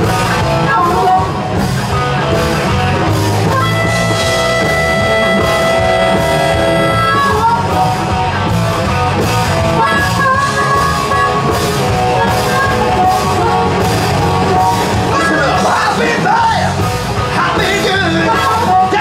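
Live rock band playing loudly: electric guitars, bass guitar and drum kit, with a harmonica and some singing. A long held note sounds for about four seconds, starting a few seconds in.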